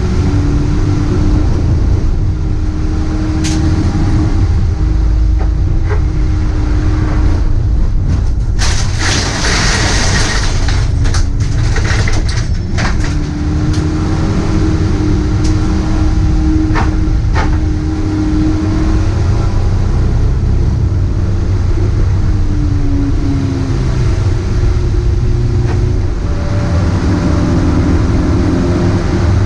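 Dacia Logan Cup race car's engine heard from inside the cabin at racing speed, its pitch holding and then rising and falling with the throttle, over a heavy low rumble. About nine seconds in there is a loud rushing hiss for a couple of seconds, and sharp clicks are scattered through.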